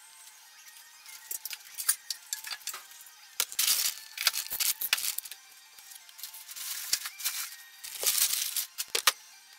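Irregular clinking and rattling of hard objects, in several clattery bursts.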